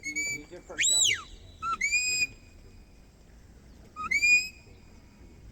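Shepherd's whistle blowing a run of short herding commands to a sheepdog: a steady note, one that swoops up and back down, and notes that rise and then hold, in groups with pauses between.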